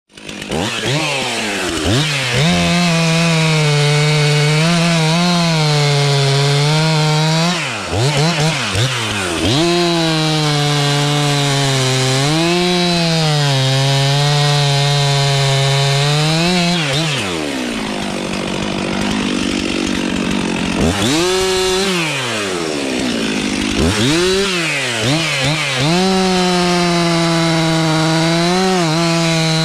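Stihl MS 362 two-stroke chainsaw running at high revs, making a felling cut into the base of a standing dead tree. The engine note drops and climbs back a few times as the throttle is eased and opened again.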